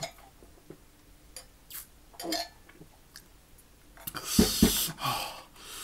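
Sips and small clinks at a stainless steel tumbler, then about four seconds in a loud, breathy exhale into the microphone, a man blowing out against the chili burn of a very spicy dish.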